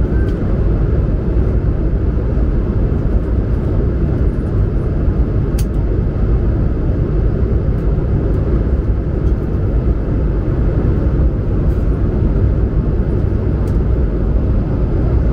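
Steady, even roar of engine and airflow noise inside the cabin of an Airbus A220-100 airliner, heaviest in the low end.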